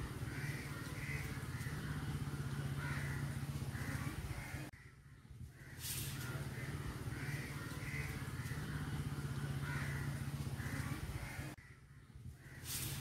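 Crows cawing over a steady low hum. The same stretch of sound repeats about every seven seconds, with a brief drop about five seconds in and again near the end, as a looped background track would.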